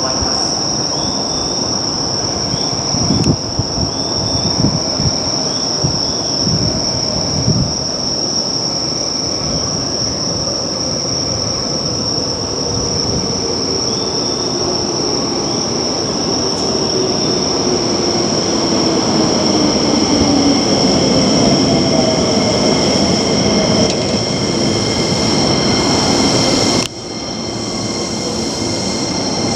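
Keio Line electric train running, with a constant high whine. A few seconds in, wheels knock over rail joints; later a motor tone falls slowly in pitch as the train slows. The sound drops suddenly near the end.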